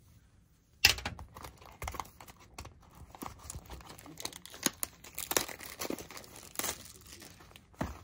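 Cardboard trading-card box being torn open by hand: a sharp tear about a second in, then irregular crinkling, rustling and sharp clicks of cardboard and packs being handled.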